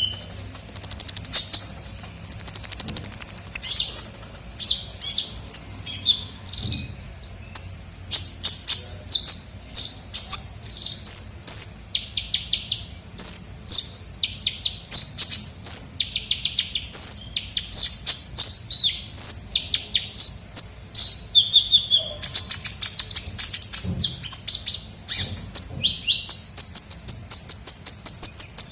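Kolibri ninja sunbird song played as a lure call: a fast, busy run of high, sharp chirps and short trills, with a long high buzzing trill about a second in and another near the end.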